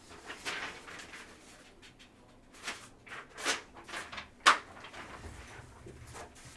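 Handling noises on a table: a few short rustles and clicks, the sharpest about four and a half seconds in.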